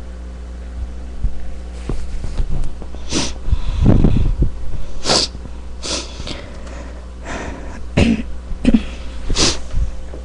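A person's sneezing fit: a run of harsh, wet sneezes in quick succession, starting about three seconds in, over a steady low hum.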